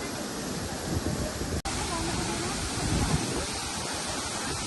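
Steady rush of a waterfall, with people's voices faintly heard under it. The sound breaks off for an instant about a second and a half in.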